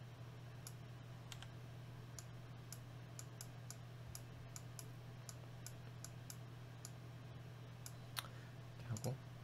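Faint, sharp computer mouse clicks at irregular intervals, a couple a second, over a steady low electrical hum.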